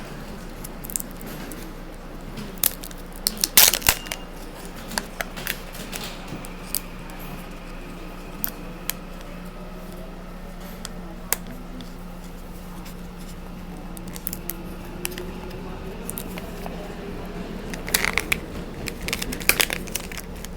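Kinder Surprise egg being unwrapped and opened by hand: foil crinkling and tearing, with sharp plastic clicks from the toy capsule. The clicks and rustles come in scattered bursts, loudest about three and a half seconds in and again near the end, over the steady low hum of the train carriage.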